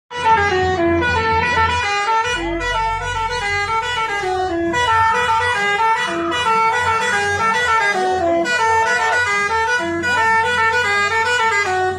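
A tourist bus's musical air horn playing a quick tune of stepped notes, several per second, over the low steady hum of the bus's engine.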